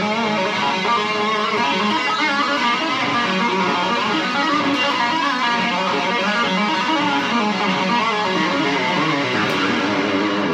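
Kramer Pacer Classic electric guitar played through a Boss DS-1 distortion pedal into a delay: a continuous fast, distorted lead line with wavering, bent notes.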